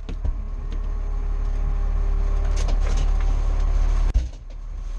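Fire engine's diesel engine idling, heard from inside the cab as a steady low rumble, with a few sharp clicks and a drop in level about four seconds in.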